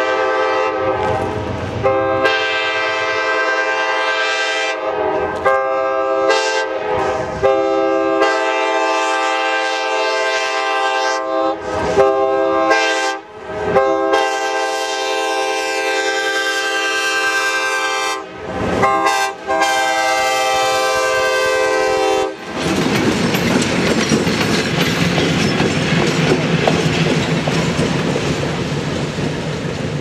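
Nathan K-5LAR24 five-chime air horn on an Alco C420 diesel locomotive, blown in a string of long and short blasts with brief breaks for a little over twenty seconds as the locomotive approaches. After the horn cuts off, the locomotive runs past with a steady rumble of engine and wheels.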